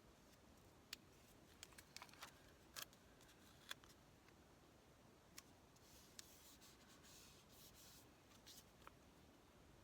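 Faint handling of paper pieces on a tabletop: scattered light taps and clicks, then a soft rustle of paper about six to eight and a half seconds in.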